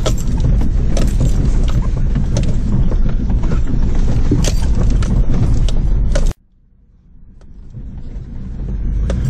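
An older four-wheel drive's engine and drivetrain heard from inside the cab, a steady low rumble in low range over a rough track, with many short clicks and rattles from the body and loose items. About six seconds in the sound cuts out abruptly and then fades back up over the next few seconds.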